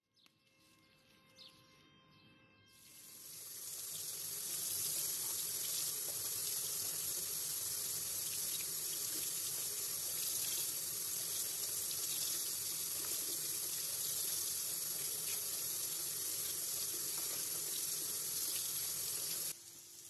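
Kitchen tap running into a stainless-steel sink, splashing over grape leaves being rinsed by hand in a bowl. It comes in about three seconds in as a steady rush and cuts off abruptly just before the end.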